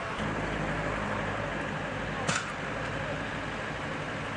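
Outdoor street ambience with a vehicle engine running steadily, and a single sharp knock about halfway through.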